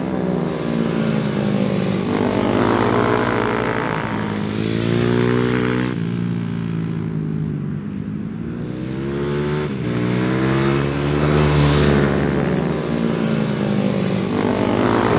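Single-cylinder minibike engine revving hard on track, its pitch climbing and dropping several times as the rider accelerates and backs off.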